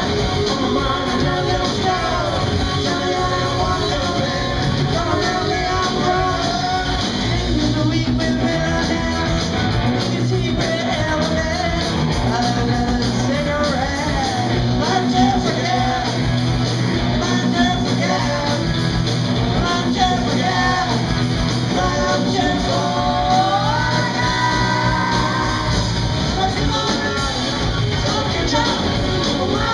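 Live rock band playing: a woman singing lead over electric guitar, electric bass and a drum kit.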